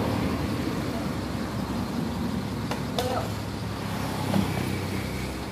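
Steady low hum of a motor vehicle engine running, with two sharp knocks close together about three seconds in.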